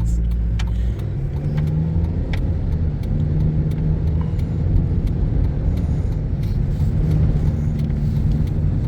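Steady low rumble of a car's engine and tyres, heard from inside the cabin while driving on snowy roads.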